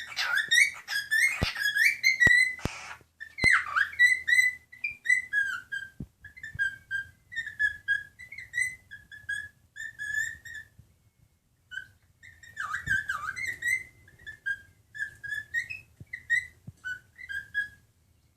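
Male silver white-faced cockatiel whistling his song: a long string of short chirping whistle notes. A denser, louder flurry comes in the first few seconds and again about two-thirds through, after a brief pause.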